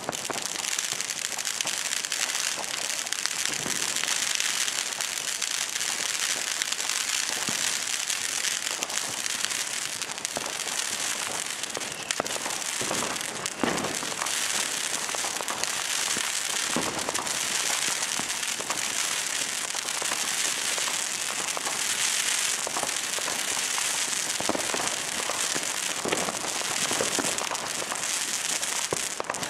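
Fireworks and firecrackers going off: a steady, dense crackling with frequent sharp bangs throughout.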